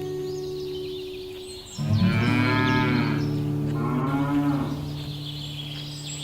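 Cattle mooing: one low moo fades out, then a louder, drawn-out moo starts about two seconds in, rising and falling in pitch.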